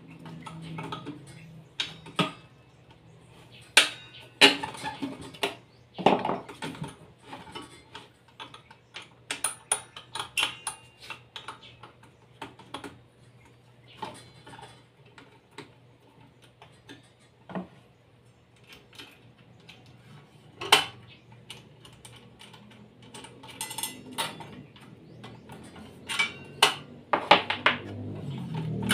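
Irregular metal clinks, clicks and knocks of hand tools and saw parts as a hand-held circular saw's blade is unbolted and removed, over a faint steady low hum.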